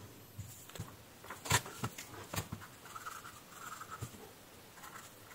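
Pen drawing on a paper sticky note, a faint scratchy sound in short strokes from about halfway through. Before it come a few light clicks and taps.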